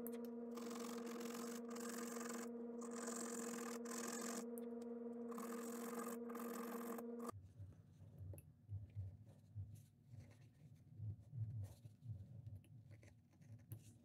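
A steady machine hum with a hiss that comes and goes, which cuts off suddenly about seven seconds in. Then faint, irregular scraping and ticking of a craft knife whittling a small wooden lure body.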